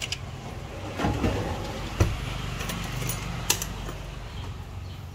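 An aluminium-framed glass cabinet drawer is pushed shut, with a knock about two seconds in and several small clicks, and the key hanging in its lock jangles. A steady low hum runs underneath.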